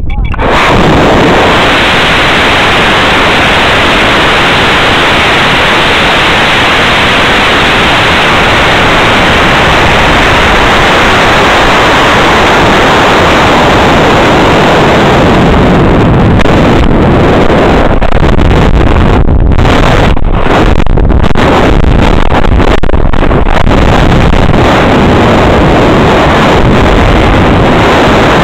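Onboard camera on a high-power rocket: a sudden, very loud, even rush of motor noise and air starts at liftoff. The wind noise over the airframe and microphone then carries on, and about halfway through it begins to flutter and drop out briefly many times.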